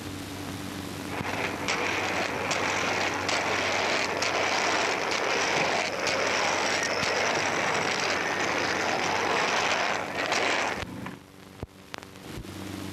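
Roller skates rolling across a hard floor: a steady rumbling rush that starts about a second in and stops suddenly near the end, followed by a few knocks.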